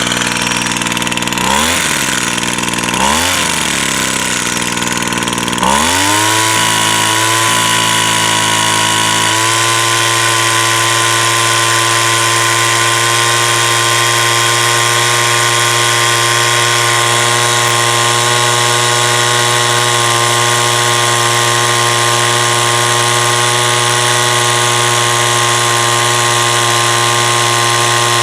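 Small petrol engine, freshly started on choke, revved in several short blips during the first few seconds, then settling into steady running at a constant speed.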